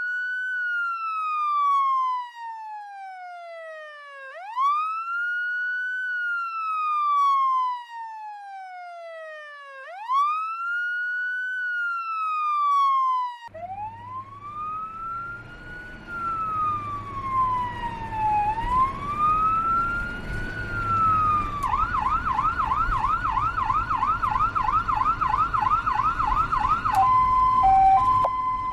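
Electronic ambulance siren in wail mode: a quick rise, then a slow fall, repeating about every six seconds, at first clean and then over a low rumble. About three-quarters through it switches to a fast yelp, about three sweeps a second, and near the end to a two-tone hi-lo.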